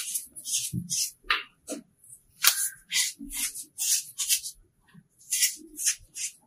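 Fingers crumbling soft chunks of pink chalky powder: a quick run of crisp, dry crunches, about two a second, with one sharper snap about two and a half seconds in and a short pause near the end.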